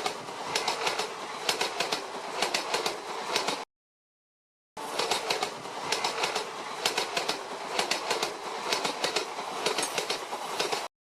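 Train running over rail joints: a rushing noise with a rapid clickety-clack of wheels. It comes in two stretches, cut to dead silence for about a second just before the middle, and stops abruptly near the end.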